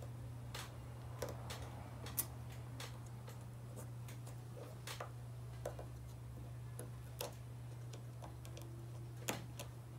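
Small irregular metallic clicks and taps of internal snap ring pliers working a snap ring into the groove of a bearing housing, the ring not yet seated. A steady low hum runs underneath.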